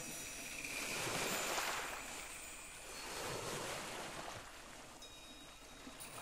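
Gentle waves washing on a shore, the noise swelling and falling in slow rushes about two to three seconds apart.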